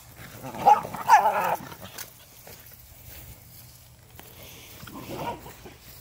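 Small dogs at play, vocalizing loudly about a second in and more faintly again near the end.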